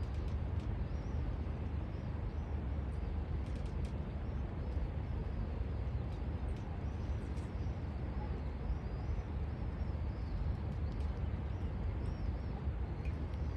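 Outdoor ambience: a steady low rumble with small birds chirping faintly and repeatedly throughout.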